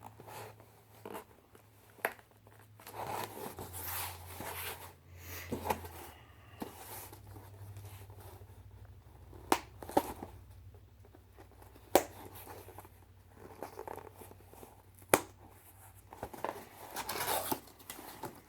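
Thick cardboard shipping boxes being torn open and handled: tearing and crinkling of packaging, with several sharp clicks and knocks.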